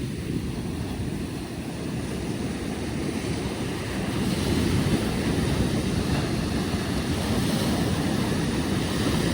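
Ocean surf breaking and washing up on a sandy beach, a steady wash that swells louder about four seconds in, with wind noise on the microphone.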